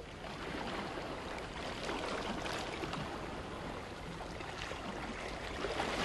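Small waves breaking and washing up a sandy beach: a steady rushing hiss of surf.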